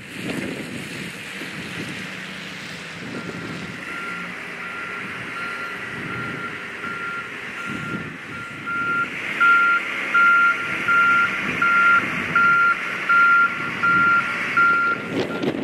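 A vehicle's reversing alarm beeping at an even pace, about three beeps every two seconds, starting about three seconds in and growing louder past the middle, over a steady rumble of running engines.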